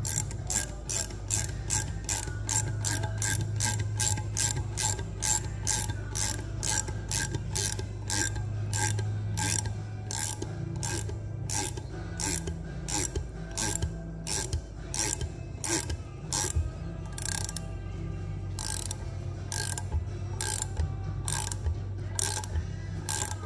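Socket ratchet clicking steadily as it turns a double-nutted M10 cylinder mounting stud into an aluminium engine crankcase, about three clicks a second, slowing a little later on. A steady low hum runs beneath it.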